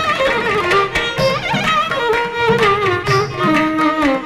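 Carnatic violin playing a thillana in raga Mohana Kalyani, its melody full of gliding, bending notes, over a steady percussion beat.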